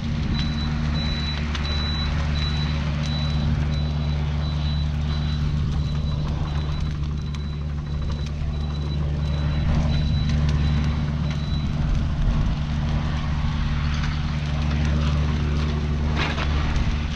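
Mini excavator's diesel engine running steadily, with a high repeated beeping for about the first two-thirds and a short clank near the end.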